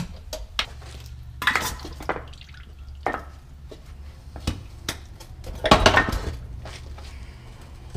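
Metal clanks and knocks as a transfer case is worked loose and pulled off the back of an E4OD automatic transmission, the loudest cluster coming a little before six seconds in, with transmission fluid splashing out onto concrete. A steady low hum runs underneath.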